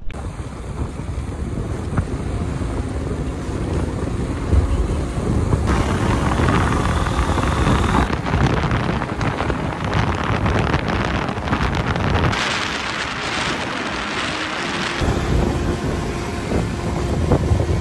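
Wind buffeting the microphone over a motorcycle's engine and road noise while riding. The sound shifts abruptly several times.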